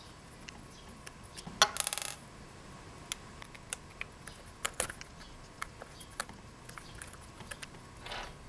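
Screwdriver working the small steel screws of a Brosol 2E carburettor's diaphragm cover, giving scattered metallic clicks and clinks. A louder metallic clatter with a short rattle comes about a second and a half in, and a smaller one near the end.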